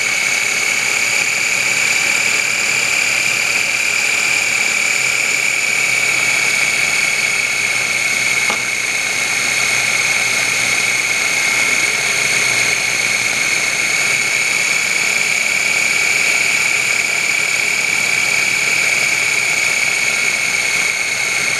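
Food processor motor running steadily with a high whine as its blade churns heavy whipping cream into butter.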